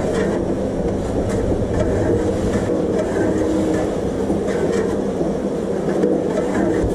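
Foundry sand mixer running: its steel pan turns under a fixed curved scraper blade with a steady mechanical rumble and a light clatter of moulding sand.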